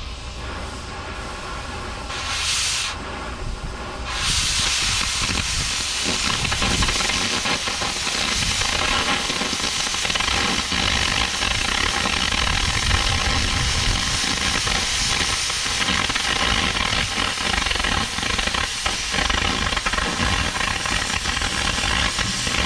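Oxy-fuel cutting torch hissing as it cuts through steel plate. The hiss swells briefly near 3 s, then from about 4 s runs louder and steady as the cut proceeds.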